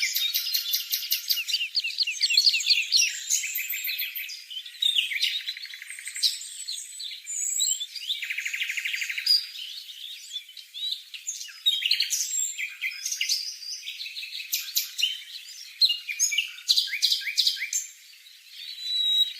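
A songbird singing a long, varied, rapid song of chirps, trills and buzzy repeated notes, with a short pause near the end.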